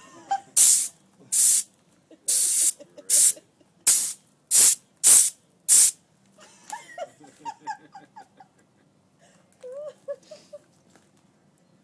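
Short blasts of compressed air from an air compressor's blow gun, about nine sharp hissing bursts in the first six seconds, blowing the ash off a bed of cooked mussels. After that the blasts stop and only faint voices remain.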